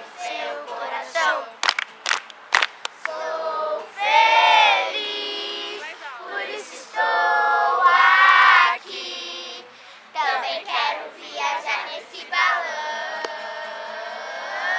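A group of children singing and chanting together in long held phrases, with a few sharp hand claps in the first few seconds.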